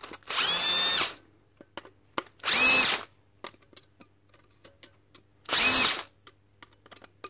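Cordless drill-driver with a long screwdriver bit, run in short bursts about two and a half seconds apart, each winding up in pitch and winding down as the trigger is released: backing out the case screws of a DeWalt 18V lithium battery pack. There are three bursts, and a fourth starts at the very end.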